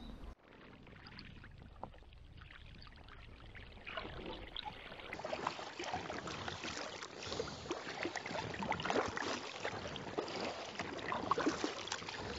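Kayak paddle strokes in lake water: the blades dipping in, with splashing and dripping off the paddle. Fainter for the first few seconds, then closer and busier.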